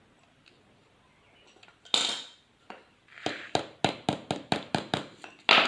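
Metal tool clinking against metal: one loud hit about two seconds in, then a quick run of about nine light strikes at four to five a second, and another loud hit near the end.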